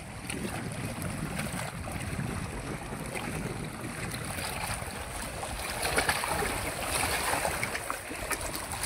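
Wind on the microphone and water lapping at the shore, with splashing from a hooked fish thrashing at the surface as it is reeled in, a few sharper splashes in the second half.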